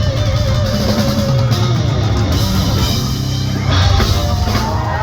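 Loud live rock band playing, electric guitar over a drum kit.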